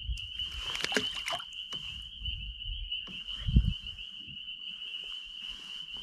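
Brief water splashing about half a second to a second and a half in as a small brook trout is let go from the hand into the lake, with a low knock against the boat a few seconds later. A steady high-pitched drone of evening insects or frogs runs underneath.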